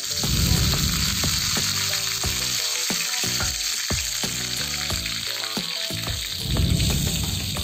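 Curry leaves and green chillies sizzling and spattering in hot oil in a frying pan, the sizzle starting suddenly and holding steady.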